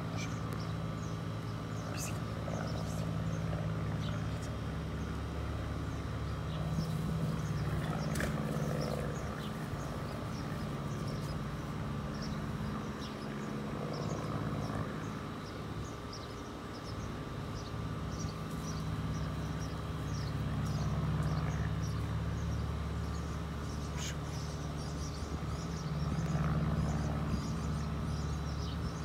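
Outdoor ambience: a steady low mechanical hum that swells and fades a few times, with scattered short high chirps over it.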